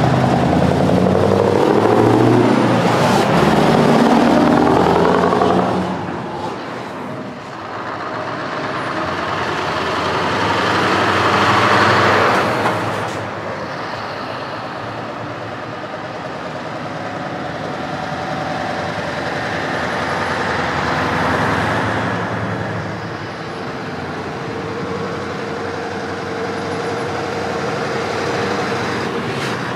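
Trucks driving past one after another. Loudest at the start is a Scania tractor unit on open exhaust pipes, accelerating hard with its engine note sweeping as it passes. Further trucks swell past about twelve seconds in and again around twenty seconds, with quieter traffic between.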